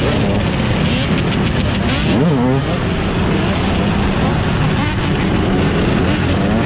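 Dirt bike engines running in street traffic, with people's voices mixed in.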